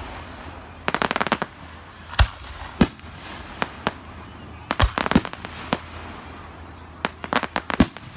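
Fireworks going off: single sharp bangs and deep booms mixed with quick rattling runs of cracks like strings of firecrackers, about a second in, around five seconds and again near the end.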